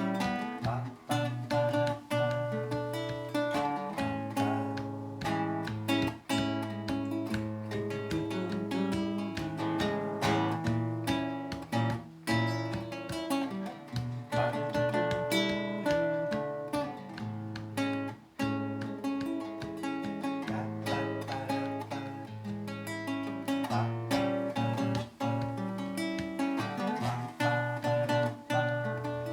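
Acoustic plucked-string instrumental music: strummed chords with a picked melody over low bass notes.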